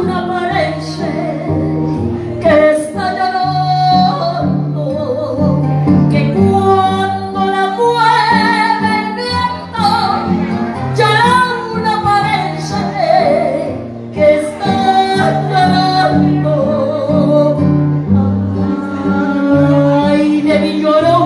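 A woman singing into a microphone over a karaoke backing track, holding long, bending notes.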